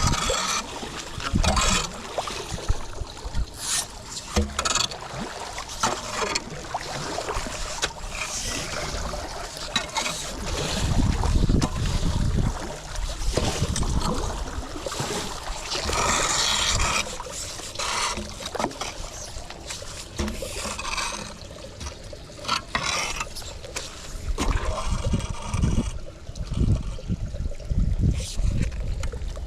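Floodwater moving around a street drain, with wind buffeting the microphone and irregular scraping and rubbing sounds from debris being cleared.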